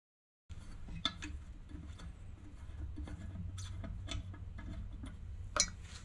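Faint clicks and light knocks of the lathe's digital-readout housing and headstock cover plate being handled and lifted off, the sharpest knock near the end, over a low steady hum.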